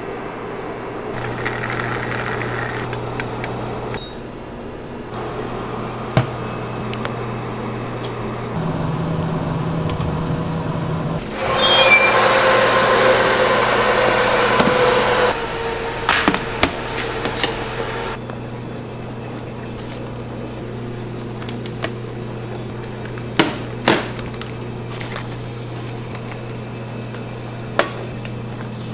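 Baking-kitchen work sounds over a steady appliance hum. Partway through a louder rushing noise with a faint steady tone comes in for a few seconds as an oven is opened and trays of cakes are pulled out. Scattered sharp clicks and knocks follow, with metal tins and trays being set down.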